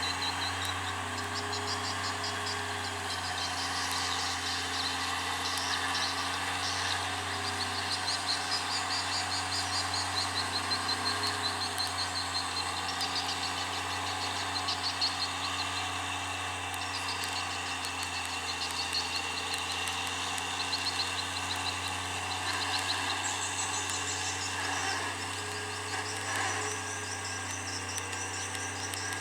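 Insects chirping in fast pulsed trills, layered over a steady low hum.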